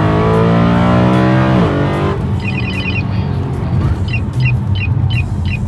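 BMW E92 M3's S65 V8 accelerating hard inside the cabin, its note climbing steadily through the revs before falling away and cutting off about two seconds in. Then a radar detector alert: a quick run of high electronic beeps, followed by repeated short chirps about three a second.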